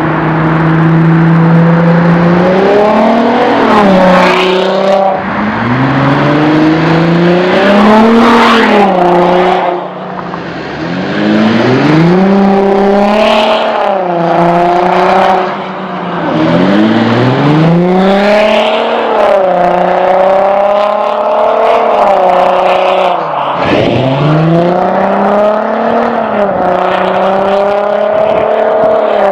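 Straight-piped Audi 2.7 TDI V6 diesel exhaust, with no muffler and a Supersprint downpipe, under hard acceleration. The revs climb and drop again and again, about half a dozen times, with steadier running in between.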